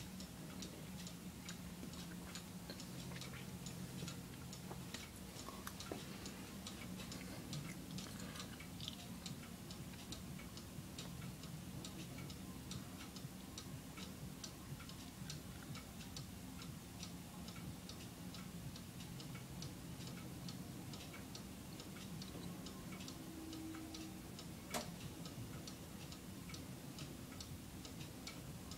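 Grandmother clock ticking steadily and faintly, with a steady low hum underneath and one sharper click near the end.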